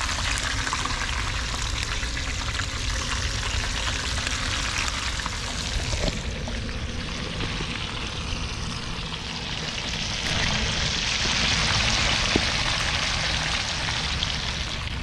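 Two whole porgies frying in hot vegetable oil in a pan, sizzling steadily. The sizzle grows louder about ten seconds in.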